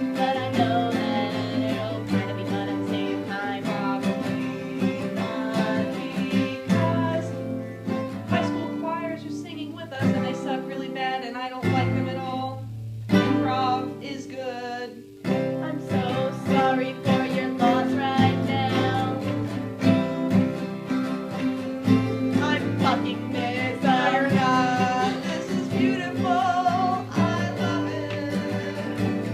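Acoustic guitar strummed with a voice singing over it in a country twang. The strumming thins out briefly about halfway through, then picks back up.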